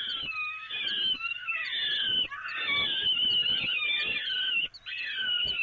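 Several peregrine falcon chicks giving shrill, overlapping begging calls while being fed, breaking off briefly near the end. Soft knocks and scuffles from the chicks scrambling in the wooden nest box sound underneath.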